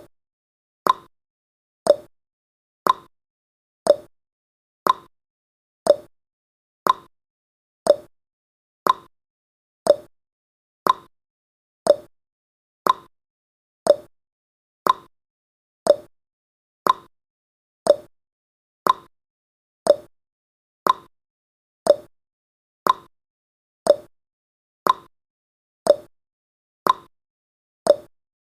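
Countdown timer's ticking sound effect: a short, sharp tick once a second, evenly spaced, about twenty-nine in all.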